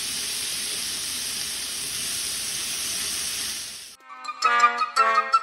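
A steady hiss of noise that stops about four seconds in, when a tune of short, bright chiming notes begins.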